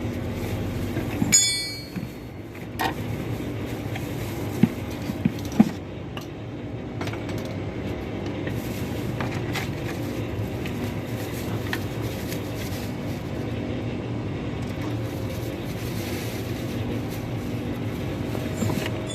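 Hand tools knocking and clinking against metal parts, one clink ringing out about a second in and a few duller knocks over the next several seconds, over a steady low mechanical hum.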